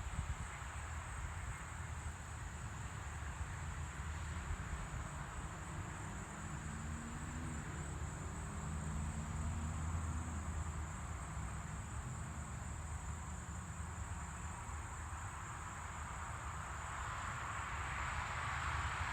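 Steady night chorus of insects, a continuous high-pitched buzzing, over a low rumble.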